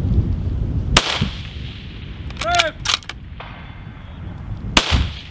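Two shots from a scoped precision rifle fired prone, about four seconds apart. Roughly a second and a half after the first, a faint ringing ping comes back from a distant steel target being hit, and a few short clicks follow it.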